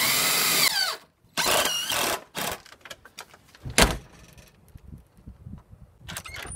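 Craftsman V20 cordless drill driving screws through a steel strike plate into a door frame, in two short runs whose whine dips and bends in pitch. A single sharp thump follows a little before four seconds in.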